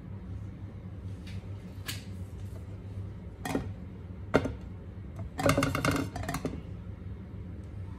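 Nonstick frying pan with oil being moved and tilted on the stove: a few light clicks and a short metallic rattle of the pan against the burner, over a steady low hum. The oil is not yet sizzling.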